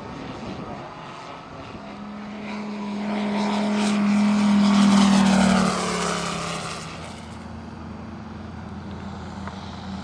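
Giant-scale RC Corsair's Moki 250 five-cylinder radial engine on a fly-by: its steady drone grows louder, peaks about five seconds in, drops slightly in pitch as the plane passes, then fades.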